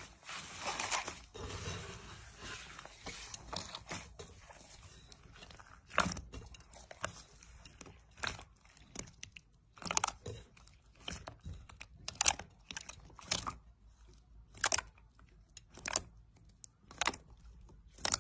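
Slime being squeezed and pressed by hand, giving off irregular sharp pops and crackles.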